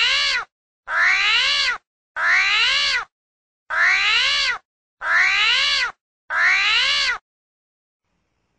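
A looped animal-call sound effect: one short, meow-like cry that rises and then falls in pitch, repeated identically six times about 1.3 seconds apart.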